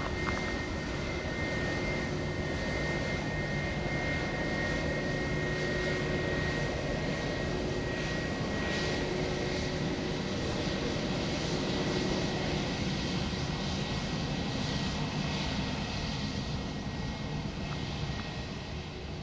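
Airbus A321 jet airliner's twin engines running at a steady low thrust as it rolls slowly along the runway, a constant whine and rumble that fades a little near the end as the aircraft moves away.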